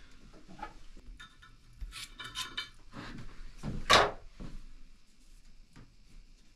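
Metal parts being handled: scattered clicks, a short ringing metallic clatter about two seconds in, then one loud knock about four seconds in.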